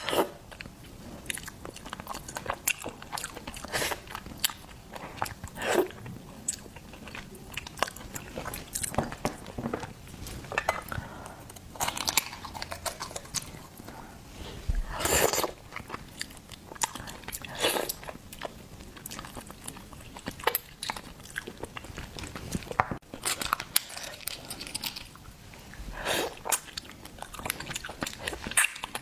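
Close-miked eating of seafood: irregular crunchy bites and crackles with chewing in between, a few louder crunches standing out.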